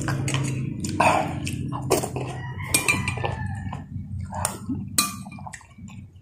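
Metal spoon clinking several times against a glass soup bowl and plate while scooping broth, with eating and slurping sounds between the clinks.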